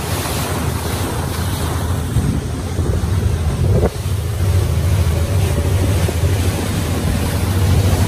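Motorboat running at speed: a steady low engine drone under heavy wind buffeting on the microphone and the rush of water off the hull.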